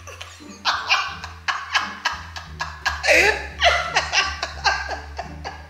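Two women laughing hard over background music with a quick knocking beat and a steady bass.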